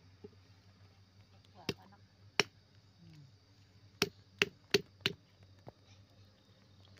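A large knife chopping through an eel's body and striking the cutting surface beneath, six sharp chops. Two are spaced apart and then four follow quickly, about three a second.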